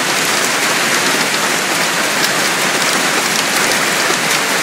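Heavy hailstorm: hail and rain pelting down in a steady, dense hiss of countless small impacts.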